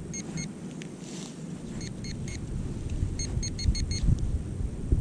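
Metal detector sounding short high beeps in quick clusters: three near the start, three about two seconds in and a faster run of about six around three and a half seconds, signalling a metal target, a dime, in the dug hole. Wind and handling rumble run underneath.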